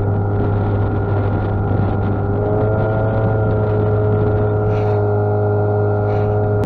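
Outboard motor running steadily at cruising speed, heard from aboard the moving boat as a constant drone; a second steady, higher tone joins about two and a half seconds in.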